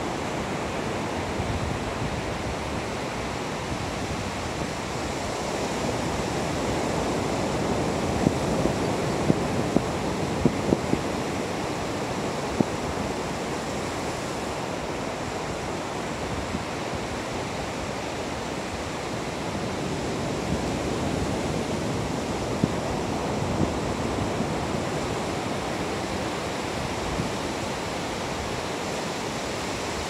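Ocean surf breaking on a sandy beach: a steady rolling wash of waves that swells twice, about a quarter and two-thirds of the way in. A cluster of sharp clicks comes during the first swell.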